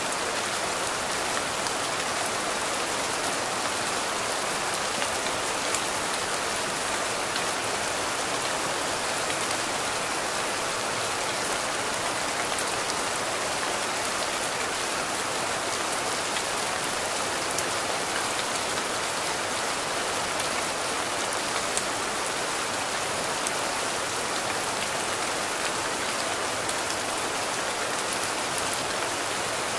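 Steady rain falling: an even hiss with scattered small drop ticks.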